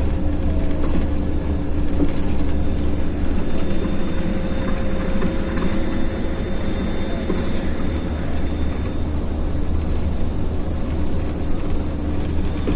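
Steady rumble of a vehicle driving, engine and road noise holding an even level throughout.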